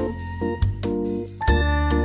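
Background music: an upbeat instrumental track with bass, keyboard and plucked notes over a steady beat.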